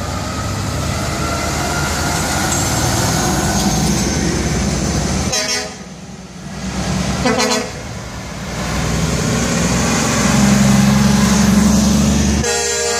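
Heavy diesel logging trucks driving past close by, their engines running loud. There are short air-horn toots about seven seconds in and again near the end.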